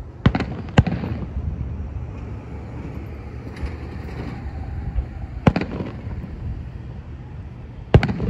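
Distant aerial firework shells bursting: two sharp bangs close together about half a second in, another about five and a half seconds in, and a loud one near the end, over a steady low rumble.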